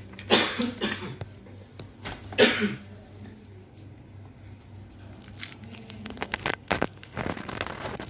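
Bench handling noise over a steady low hum: two short vocal noises near the start, then a flurry of small clicks and taps in the second half.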